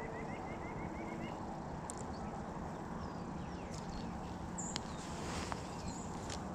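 A bird calling a quick run of about ten high chirps in the first second or so, over a steady background hiss, followed later by a few faint small clicks from the hook and bait being handled.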